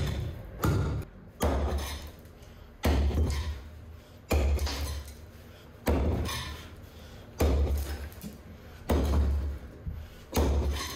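A steel pickaxe head repeatedly striking a stone block, chipping chunks off it. About eight heavy, dull thuds come roughly a second and a half apart.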